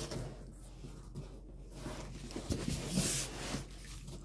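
Utility knife slicing along the taped seam of a cardboard box: scratchy scraping of the blade against the cardboard, with a louder scrape about three seconds in.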